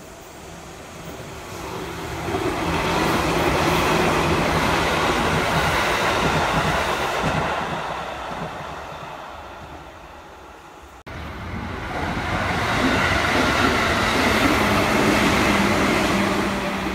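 Electric multiple-unit trains running past on the rails, the rumble of wheels and cars swelling and fading as one passes. After an abrupt cut about two-thirds of the way in, a second train swells in the same way, each pass carrying a steady low hum.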